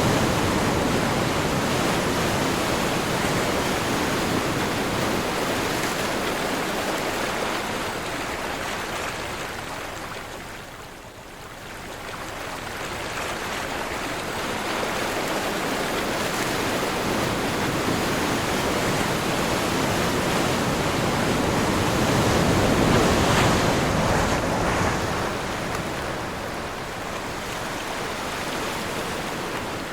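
Ocean surf with wind: waves rush in and wash back. The noise falls almost away about eleven seconds in, then builds again to a crest a little past two-thirds of the way through.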